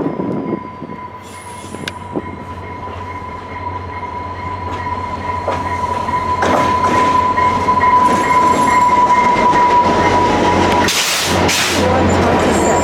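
VIA Rail passenger train led by an F40PH diesel locomotive, with a steady high-pitched squeal and a deep diesel hum that grow louder. Two short, loud bursts of noise come near the end.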